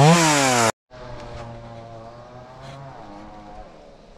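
Stihl chainsaw revving up and dropping back, cut off suddenly under a second in. A much quieter steady engine hum follows, fading toward the end.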